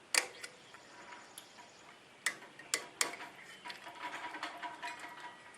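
A few sharp clicks and scattered light ticks of hands and a scratch awl working the worn old tire off a bandsaw's aluminum wheel.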